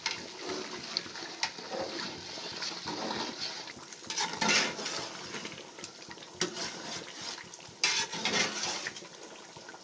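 Metal spoon and slotted turner scraping and knocking irregularly against the sides of an aluminium pot as a thick tomato stew is stirred, with the stew bubbling underneath.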